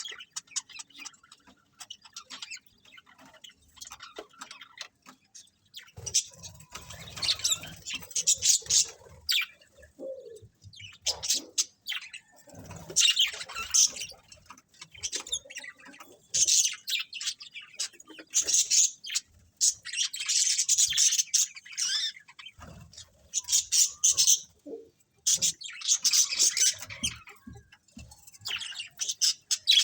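A colony of budgerigars chirping and chattering, many birds at once, in busy spells of a few seconds with brief lulls between.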